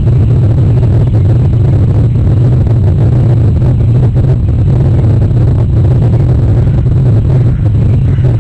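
Loud, steady low rumble with no break or change.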